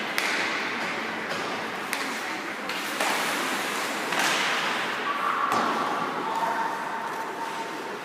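Ice hockey game sounds in a rink: sharp knocks and slaps of sticks and puck against the ice and boards, over a steady noisy background.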